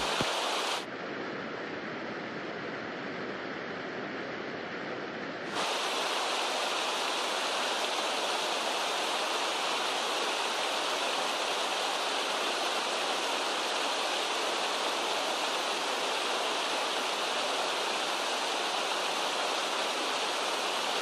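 Small waterfall spilling over a low rock ledge into a stream pool: a steady rushing of water. It sounds duller and a little quieter for the first few seconds, then brighter and fuller from about five and a half seconds in.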